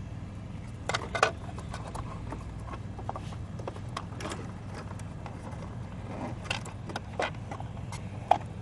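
Scattered clicks and light knocks of parts being handled as the cover goes back over the refrigerator's circuit board, over a steady low hum.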